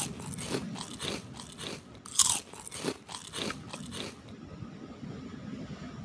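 Crunchy food being chewed close to the microphone: a run of crisp, irregular crunches that stops about four seconds in.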